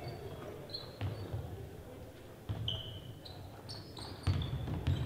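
Basketball being dribbled on a gym's hardwood floor: several dull bounces about a second or more apart, with short high squeaks of sneakers on the court between them.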